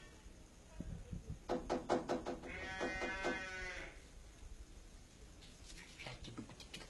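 A man laughing: a quick run of short, pulsed laughs, then one long wavering laugh. A few soft knocks come just before.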